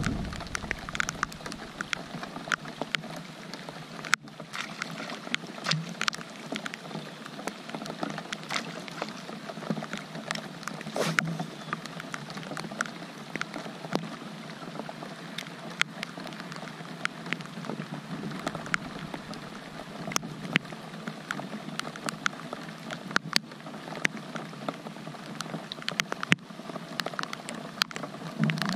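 Steady rain falling, with many irregular sharp ticks of raindrops striking close to the microphone.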